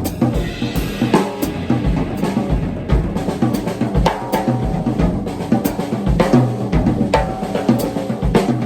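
Drum kit played in a continuous groove: a melody carried on the snare drum with the left hand filling in between, over steady bass drum hits. The playing stops at the very end.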